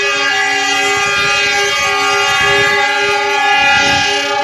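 Diesel locomotive horn sounding in one long, loud, unbroken blast, several notes together that shift in and out, over the rumble of the oncoming train.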